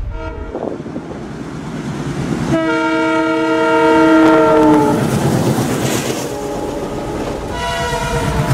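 An Indian diesel locomotive's horn sounding: one long multi-tone blast about two and a half seconds in, then a shorter blast near the end, over the running noise of the train.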